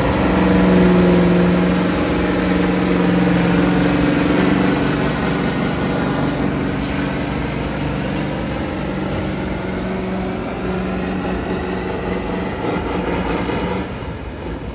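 Semi truck's diesel engine running hard under load as it drags a weight-transfer sled in a truck pull. The steady engine note is loudest in the first few seconds and then slowly fades.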